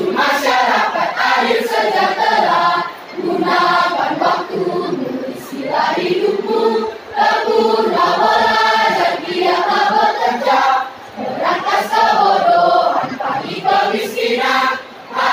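Junior high school choir of girls and boys singing together, phrase after phrase, with short breath pauses about every four seconds.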